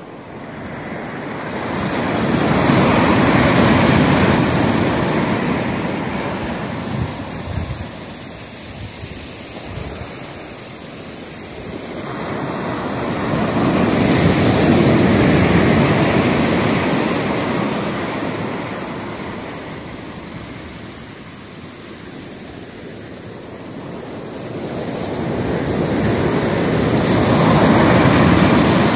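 Rough ocean surf breaking on a sandy beach and rushing up the shore, swelling loud and ebbing again three times, about twelve seconds apart.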